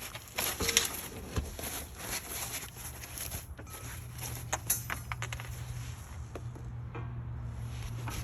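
Unpacking sawmill kit parts by hand: scattered clicks, clinks and rustles of metal pieces and packaging. A steady low hum comes in about three and a half seconds in.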